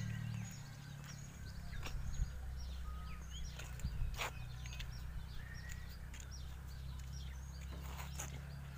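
Caterpillar backhoe loader's diesel engine idling with a steady low rumble, while small birds chirp over it.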